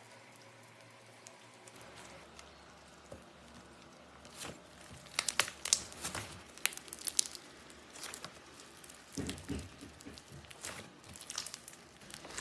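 Slime being squeezed and poked by hand, giving a run of sharp crackles and pops. It starts about four seconds in, is loudest soon after, and goes on more softly to the end.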